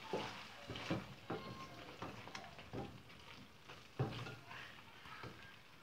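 Wooden spatula stirring thick chicken curry in a stainless steel pot, with short scrapes and knocks against the pot about once a second, the loudest about four seconds in. The curry is being stirred on low heat while it dries down.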